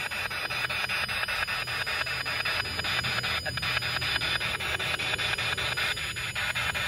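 Spirit box sweeping through radio frequencies: a steady hiss of radio static, chopped into rapid, evenly spaced bursts as the scan steps from station to station.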